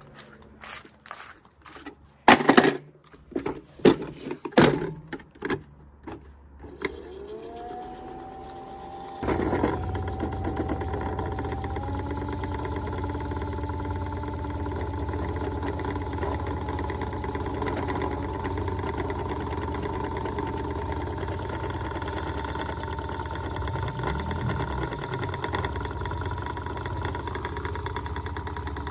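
Several clicks and knocks, then a toy washing machine's small electric motor starts about seven seconds in, its whine rising as it spins up. It settles a couple of seconds later into a steady running hum with a held whine.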